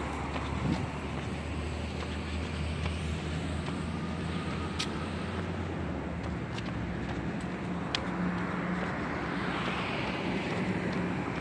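Road traffic noise from cars on the adjacent street: a steady low hum through the first half, a swell as a car goes by near the end, and a few sharp isolated clicks.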